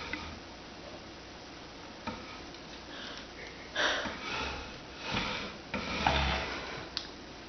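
A dog sniffing and snuffling through its nose while it tugs a toy caught on a chair leg. There are louder rustling bursts with soft bumps about four and six seconds in, and a short click near the end.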